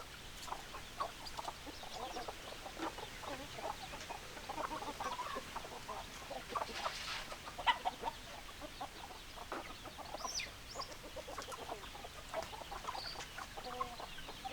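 A flock of hens clucking, many short clucks overlapping without pause, with a brief higher call about ten seconds in.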